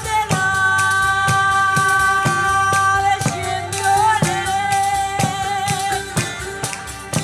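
Southern Italian folk band playing live: long held melody notes over a steady frame-drum (tammorra) beat and strummed guitar.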